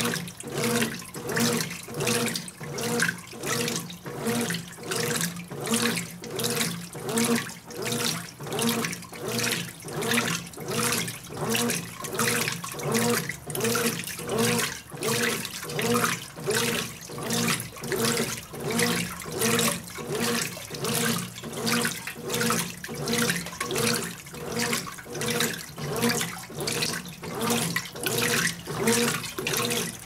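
Brastemp 16kg BWK16 top-loading washing machine washing a queen-size comforter: water sloshes in an even back-and-forth rhythm of a little more than one surge a second, with the motor humming on each stroke.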